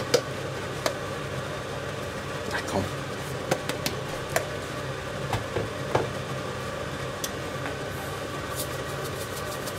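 Induction hob humming steadily under a cast-iron skillet of simmering sauce, with scattered light clicks and pops.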